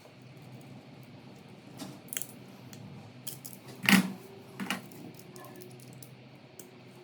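Scattered small metallic clicks and clinks of tools and socket parts being handled, with one louder clack about four seconds in, over a faint steady low hum.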